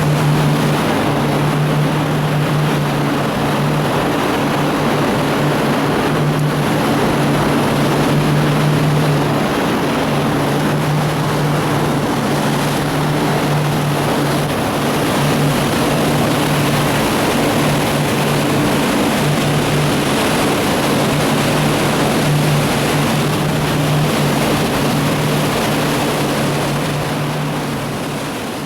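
Motorboat engine running steadily, a hum with overtones under a loud rush of wind and water noise.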